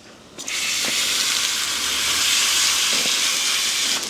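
Water spraying from a hose onto a horse's leg wound to rinse it, a steady hiss that starts about half a second in.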